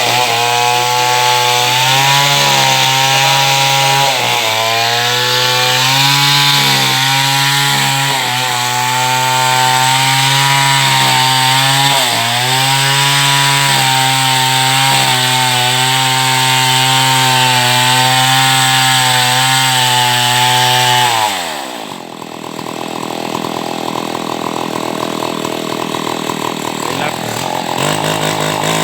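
Chainsaw running at a steady high pitch, dipping briefly every few seconds as if loaded by cutting. About 21 seconds in, the engine note falls sharply to a lower, rougher idle, then revs back up near the end.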